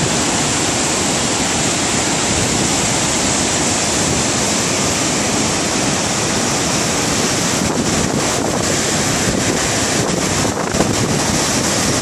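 Floodwater of a swollen, muddy river rushing and churning over a drop in its concrete channel, a loud steady rush of water after heavy typhoon rain.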